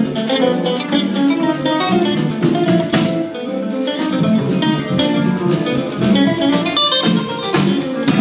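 Instrumental music: fast plucked-string playing, a busy run of quick notes.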